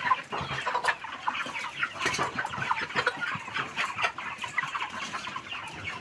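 A large flock of broiler chickens clucking and cheeping, many short calls overlapping into a continuous chatter.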